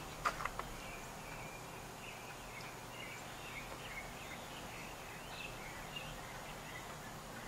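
Faint outdoor ambience with distant birds chirping in short, wavering calls, and a couple of light clicks about a third of a second in.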